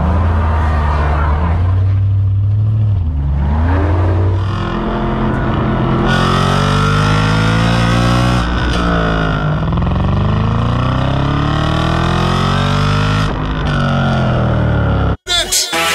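Audi RS4 exhaust recorded right at the tailpipe. The engine pulls away from a standstill and accelerates through the gears to about 50 mph, its pitch rising in long sweeps that break at each gear change. Then the revs fall steadily as the car slows, and the sound cuts off suddenly shortly before the end.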